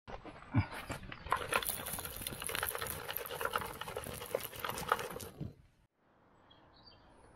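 Soil being shaken through a wooden-framed garden sieve, with grit and small stones rattling and crackling on the mesh. It stops suddenly about five and a half seconds in.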